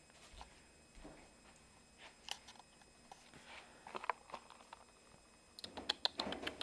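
Faint, scattered clicks and smacks of a cat licking and eating peanut butter, coming thicker near the end.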